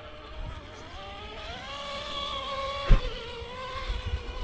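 Electric motor and gears of an RC rock crawler whining, rising in pitch as it speeds up and then holding steady, with a sharp knock about three seconds in and a few smaller bumps near the end as the crawler hits the rocks.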